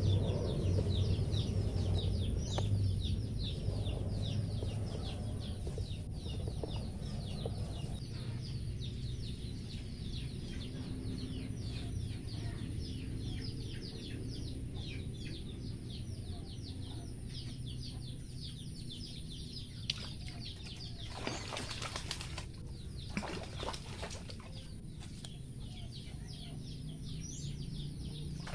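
Small birds chirping in a fast, unbroken run of high falling notes. There are a few short bursts of rustling about three quarters of the way through.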